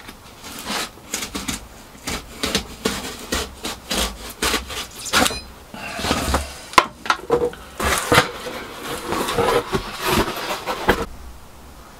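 Sharp knife drawn repeatedly along a steel rule, scoring and cutting foam board: a run of short, irregular scratchy strokes that stops about a second before the end.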